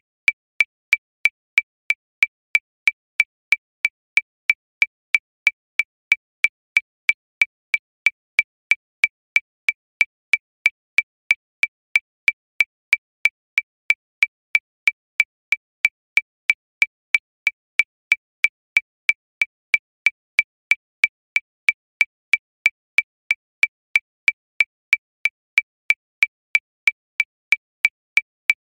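Metronome clicking steadily at 185 beats per minute, about three short, high-pitched clicks a second, all at the same pitch.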